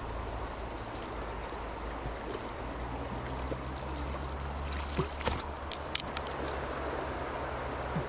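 River water flowing steadily, with a few short sharp clicks a little past the middle.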